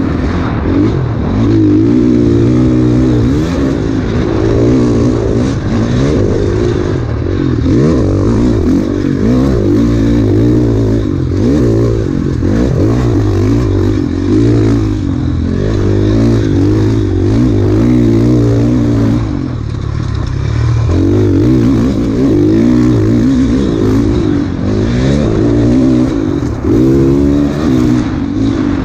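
Off-road enduro motorcycle engine under hard riding, the revs climbing and dropping again and again as the throttle is worked, with clatter from the bike over rough ground.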